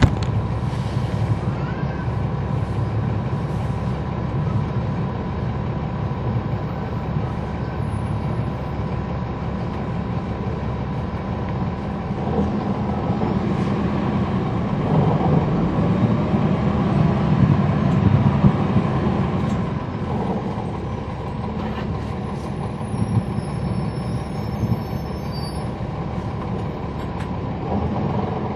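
NABI 40-foot transit bus's Cummins ISL9 inline-six diesel and ZF Ecolife automatic transmission under way, heard from the rear seats inside the bus, with a steady whistle running through it. The engine builds and grows louder from about twelve seconds in, is loudest near eighteen seconds, then eases off.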